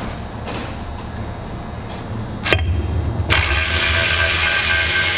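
Cordless ratchet with a hex bit running in short loud spells, spinning out the small hex-head bolts on an electric forklift drive motor's end plate. It starts about three seconds in, after a single click.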